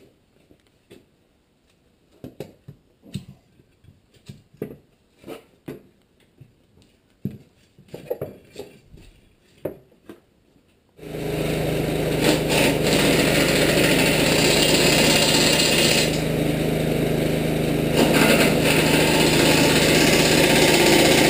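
Scattered knocks and thumps as a heavy dual truck wheel and tire is handled. About halfway through, a handheld power tool starts suddenly and runs loud and steady against the rusty steel wrecker boom, cutting off abruptly at the end.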